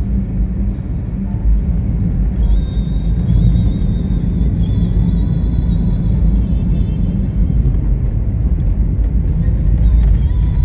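Steady low road rumble inside a moving taxi's cabin, from engine and tyres, with an old song playing faintly on the car stereo.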